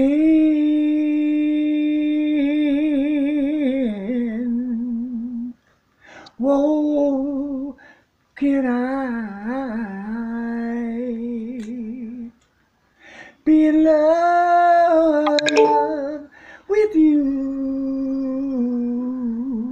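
A man humming a wordless melody unaccompanied, in five long phrases of held notes with vibrato and sliding pitch, separated by short pauses for breath.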